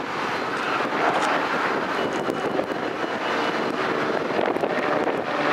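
Metra diesel locomotive working under throttle, a steady engine and train noise with faint steady tones on top; the locomotive is visibly smoking from its exhaust.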